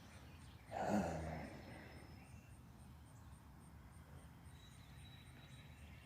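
A man sighs once, about a second in, a short voiced exhale that fades out. Then faint outdoor background.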